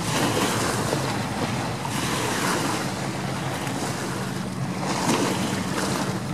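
Many motorboats running past at speed, a steady drone of engines mixed with the wash of choppy water and wakes, and wind buffeting the microphone.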